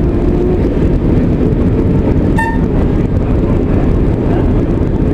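Uerdingen VT 98 diesel railbus running along the line: a loud, steady rumble of engine and wheels on rail. About two and a half seconds in, its horn gives a very short blip.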